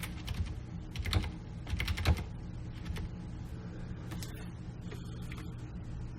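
Scattered clicks and taps of a computer keyboard and mouse, loudest about one and two seconds in, over a low steady hum.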